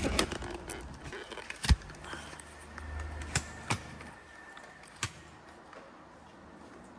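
Several sharp clicks and knocks a second or so apart, the loudest near two seconds in, with a short low hum in the middle.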